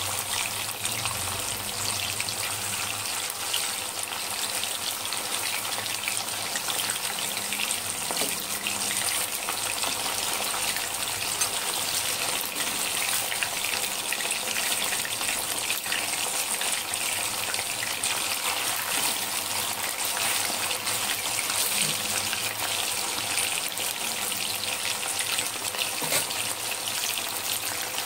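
Chicken pieces in a cornflour-and-chilli coating deep-frying in hot oil: a steady, dense sizzle with fine crackling.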